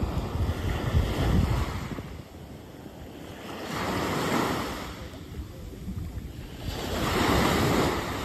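Small waves breaking and washing up a sandy beach, the surf swelling twice, about three seconds apart. Wind buffets the microphone with a low rumble in the first couple of seconds.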